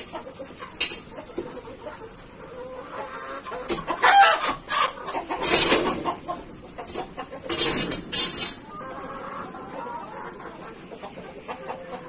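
A flock of brown hens clucking and calling in their pen, with several louder bursts about four, five and a half, and eight seconds in.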